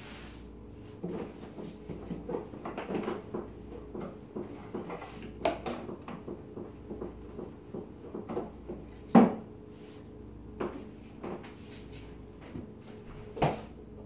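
Jars, bottles and containers being handled in an open refrigerator, knocking and clattering against the shelves and door bins. There is one sharp knock about nine seconds in, and a thud near the end as the refrigerator doors are shut.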